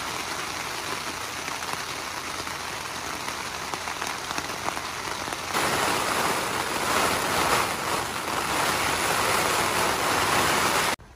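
Rain falling on the fly of a Zerogram Thru-Hiker tent, heard from inside as a steady patter. About five and a half seconds in it changes to a louder, heavier downpour: the rainstorm.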